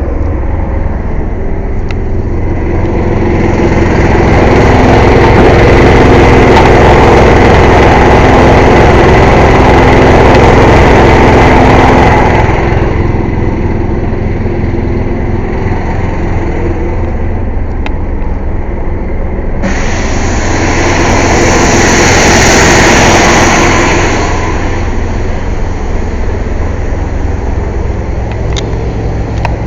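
Air compressor's engine running loudly and steadily during an 18-wheeler tire change. Two louder, hissing stretches rise over it, one of about nine seconds starting about three seconds in and a shorter one of about four seconds near the twentieth second.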